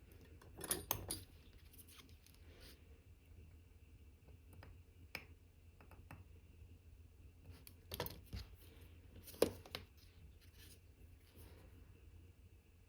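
Watchmaker's small metal hand tools clicking and tapping against watch movement parts during reassembly: a few sharp light clicks in small clusters, the sharpest about nine and a half seconds in.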